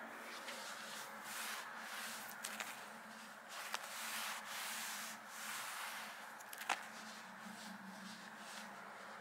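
A hand rubbing and stroking across the pile of a thick curly-pile rug: a few soft swishing strokes with some small taps, over a faint steady hum.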